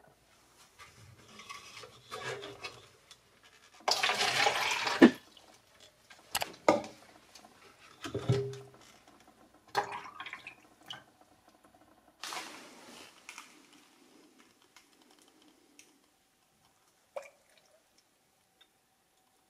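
Liquid poured from small plastic cups into a red plastic cup in a few short pours, the loudest about four seconds in. Between the pours there are sharp clicks of the plastic cups being handled and set down. The pours are distilled water and pink coolant being mixed.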